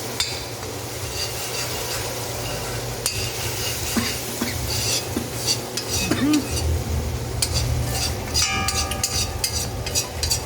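Curry frying in browned sugar and oil for a curry stew, sizzling while a spoon stirs and scrapes the pot, over a steady low hum. The scraping and clinking come quicker over the last three seconds.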